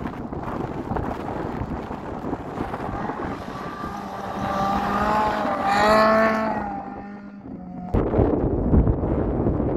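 Rally car engine at high revs passing close by, its pitch rising as it nears and falling as it goes past, loudest about six seconds in. Wind buffets the microphone before the car arrives and again after a sudden change near the end.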